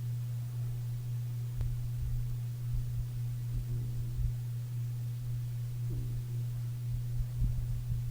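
Dachshund snoring softly, with a couple of short pitched snores a few seconds apart, under a steady low hum that is the loudest sound.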